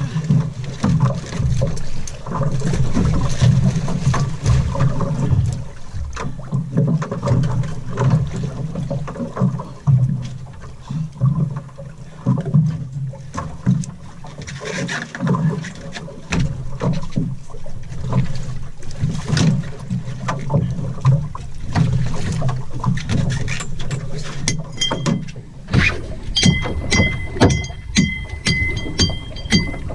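Sea water slapping and sloshing against a small boat's hull, with wind on the microphone and knocks of gear on deck. Near the end a high repeating tone pattern, several pulses a second, begins.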